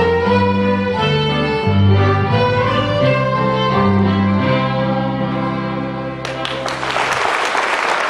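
Three fiddles with bass and piano play an old-time tune to its close, ending on a long held chord. Audience applause breaks out about six seconds in, just before the chord dies away.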